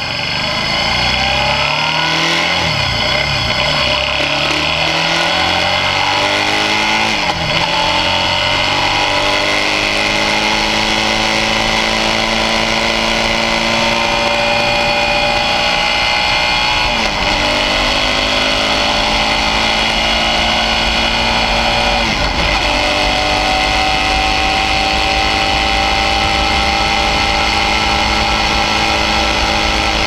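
Suzuki V-Strom 650's V-twin engine under way. The revs climb steadily, then drop sharply several times at gear changes before climbing again.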